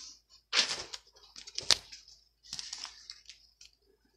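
Rustling and crinkling of a plastic adhesive stencil transfer being handled and laid onto a cotton kitchen towel, in short scratchy bursts with one sharp tap near the middle.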